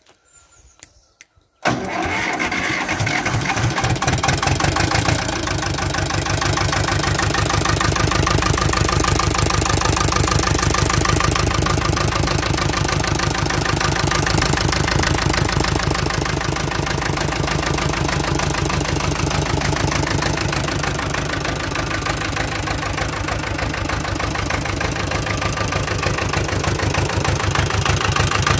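Ursus C-330 M tractor's two-cylinder diesel engine. It comes in abruptly about two seconds in, then runs steadily at a fixed speed with an even, rhythmic beat.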